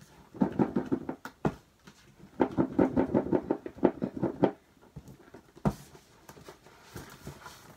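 Plastic seal on a MacBook Pro box being torn and pulled off, in two bouts of rapid crackling: a short one about half a second in and a longer one from about two and a half to four and a half seconds. A few light handling clicks follow.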